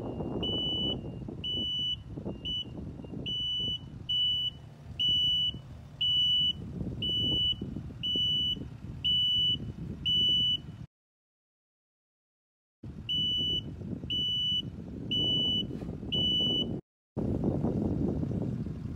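A construction machine's reversing alarm beeps steadily, about one and a half times a second, over the running engines of the earth-moving equipment. The sound cuts out for about two seconds midway, and the beeping stops near the end while the engines run on.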